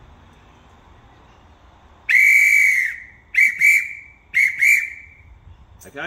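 Hand whistle blown as a crane signal: one long blast about two seconds in, then four short blasts in two pairs. This is the whistle signal telling the crane operator to telescope the boom back in.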